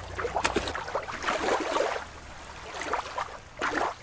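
Water splashing and sloshing.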